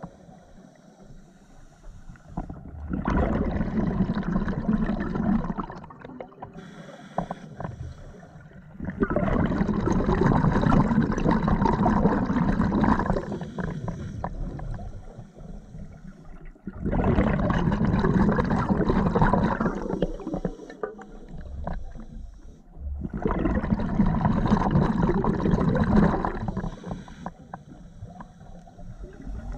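Scuba diver breathing through a regulator underwater: four long exhalations of bubbles about seven seconds apart, with quieter inhalations between.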